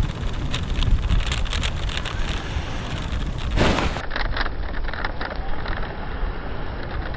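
Wind buffeting the microphone as a steady low rumble, with scattered small clicks and crackles and a brief rustle about three and a half seconds in.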